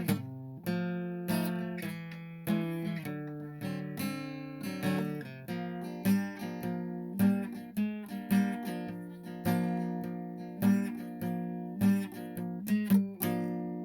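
Acoustic guitar music, strummed and picked chords.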